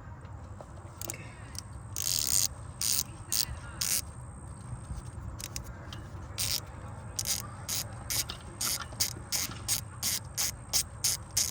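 Hand ratchet with a T30 Torx bit on an extension clicking in short runs of strokes while a bolt is backed out, steadier at about two to three strokes a second in the second half.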